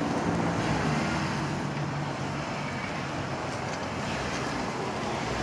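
Car engine running at low speed with a steady scraping from the wheel: the brake caliper, its bracket mounting bolt gone, is scraping on the inside of the wheel.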